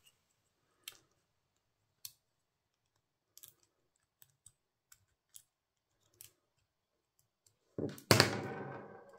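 Small sharp clicks and taps of die-cut cardstock pieces being pushed out of the cut sheet, scattered irregularly. About eight seconds in comes a louder clatter with a short ringing tail.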